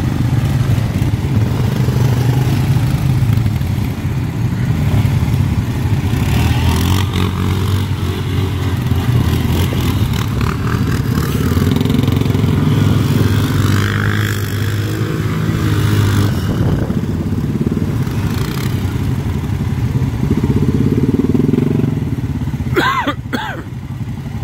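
ATV engines running close by, a steady low drone that swells now and then as the quads ride through the shallow water. A short high, rising sound comes near the end.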